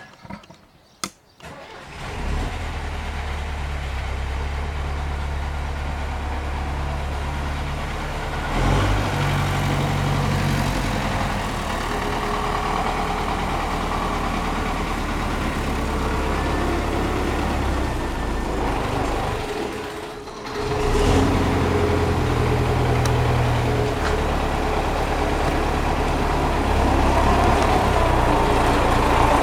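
MTZ tractor diesel engine starting about two seconds in and then running steadily, with the engine knock the video is about. About twenty seconds in it briefly dies down, then picks up again.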